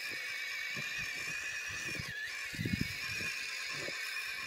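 Whine of the FMS FCX24 1/24-scale RC truck's brushless motor and gears. The whine wavers in pitch with the throttle and dips briefly about two seconds in. Uneven low rumbling comes from the tyres churning through deep snow.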